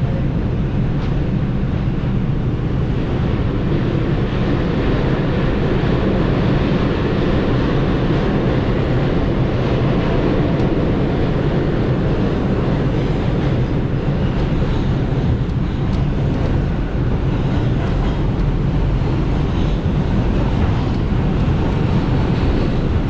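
New York City subway train running between stations: a steady, loud rumble and rattle of the wheels on the track, with no change in pace.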